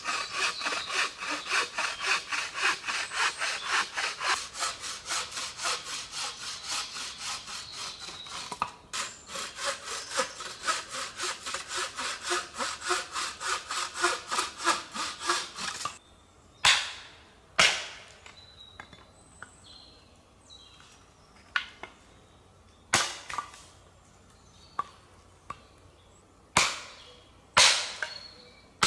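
Bow saw cutting through a branch on a wooden stump in fast, even strokes, about three a second, with a short pause about nine seconds in. The sawing stops about sixteen seconds in, and a series of sharp knocks follows, a second or more apart: a hatchet striking the cut piece of wood on the stump.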